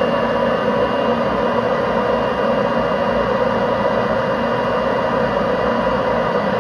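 Ryobi leaf blower running steadily and forcing air through the dryer vent duct, heard at the outside vent as a constant rush of air with a faint whine.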